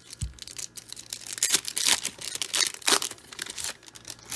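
A foil baseball-card pack (1995 Upper Deck SP) being torn open and crinkled by hand: a run of crackling rips and rustles, loudest in the middle, after a soft low thump at the start.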